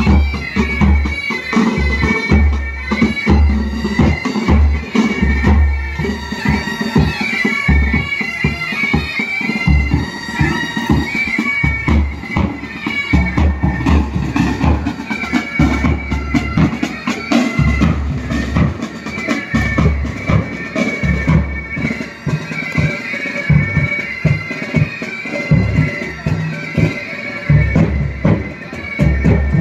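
Military pipe band playing: bagpipes sounding their steady drones and chanter melody over a bass drum and side drums beating a steady marching rhythm.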